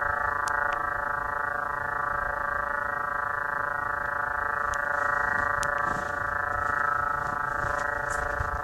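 A steady, unchanging drone with many evenly spaced overtones held at one pitch: one of the 'sounds of the planets' space recordings, spacecraft radio data turned into sound.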